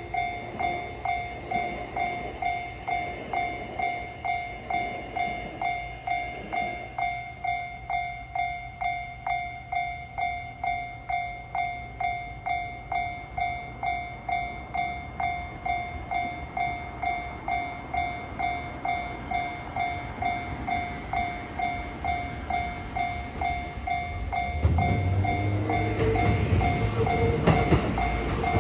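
Japanese level-crossing warning bell dinging in a steady, even rhythm of just under two strikes a second. About 24 seconds in, a JR West 207 series electric train arrives, and its rumble and rail noise swell louder under the bell.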